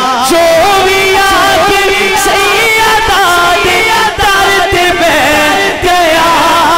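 Male voices singing a Punjabi devotional manqabat, drawn out in long held notes that waver and slide between pitches.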